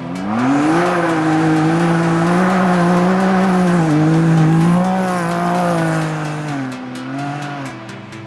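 Rally-raid competition vehicle's engine running hard under acceleration: the pitch climbs steeply in the first second, holds high with small rises and falls, dips briefly about four seconds in, then drops away near the end.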